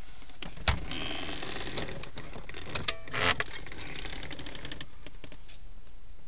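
Glove box of a 1979 Mercedes-Benz 450SL opened by hand: a sharp click of the latch under a second in, then light clicks and knocks and a short rattle about three seconds in.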